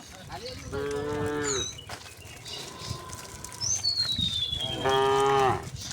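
Cattle mooing: two calls of about a second each, one about a second in and one near the end. A high whistle falling slowly in pitch sounds over the second half.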